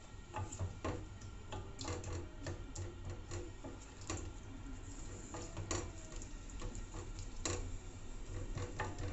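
Wooden spoon stirring sliced onion frying in oil in a stainless steel pot: irregular clicks and knocks of the spoon against the pot over a light sizzle.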